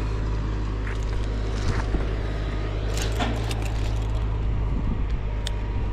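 A steady low rumble, with scattered sharp clicks and rattles of climbing hardware (carabiners and rope gear) as a climber shifts on the trunk of a pine.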